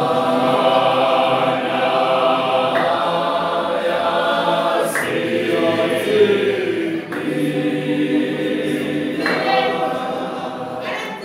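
Gospel choir singing unaccompanied in several-part harmony, with sustained chords broken into phrases every couple of seconds. The singing comes in at once at the start.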